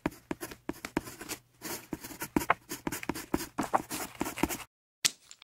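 A pen sketching quickly on paper: a dense run of short, irregular scratching strokes that stops abruptly about four and a half seconds in, followed by a couple of brief strokes.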